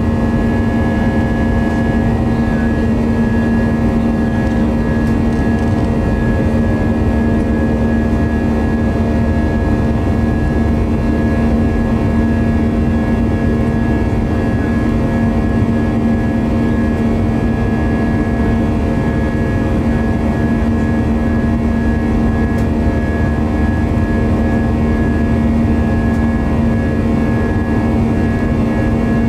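Airbus A320's IAE V2527-A5 turbofan engine heard inside the cabin during the climb after takeoff. It is a loud, steady drone with a strong low hum and a fainter high whine over a broad rumble.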